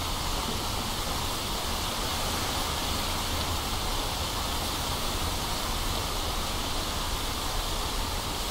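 Steady rain, an even hiss with a low rumble beneath it.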